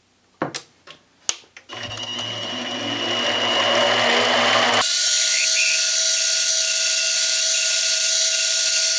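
Mini lathe starting after a couple of clicks and running up to speed about two seconds in, as a 1/4 inch flat endmill in the tailstock drill chuck is fed into the spinning part: a steady motor hum with a high whine and cutting noise. About five seconds in, the sound jumps suddenly higher and hissier, because the drilling is played back sped up six times.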